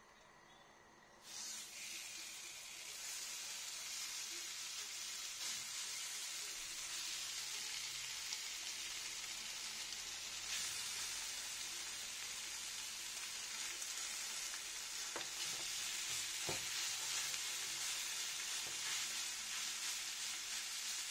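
Raw minced pork sizzling in a hot non-stick frying pan, the hiss starting sharply about a second in as the meat lands and then holding steady. A few light taps and scrapes of a spatula in the pan come in the second half.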